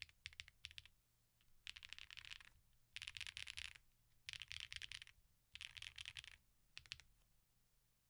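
Space65 R3 custom mechanical keyboard being typed on. It has an FR4 plate with plate foam, lubed switches and stabilizers, and GMK keycaps. A few separate keystrokes come first, then four bursts of rapid typing about a second each, and a few last keystrokes near the end.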